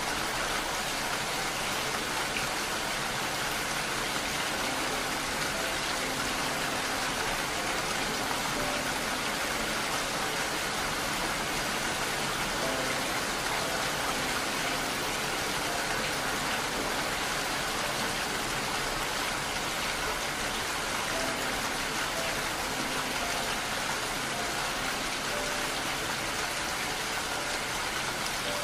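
Steady rain, an even, unbroken hiss of falling water, with a few faint soft tones now and then.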